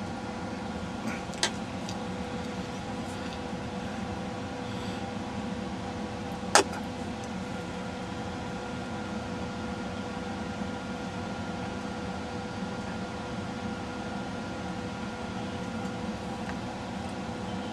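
Steady machine hum, like a fan running, with a faint steady tone in it. Two light clicks break through, the second, about six and a half seconds in, sharper and louder.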